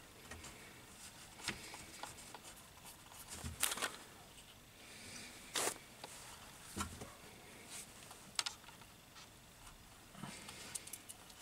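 Faint handling sounds of small nuts, washers and wires being worked on an electric motor's terminal block: light scraping and fabric rustle, with a handful of sharper metallic clicks a second or two apart.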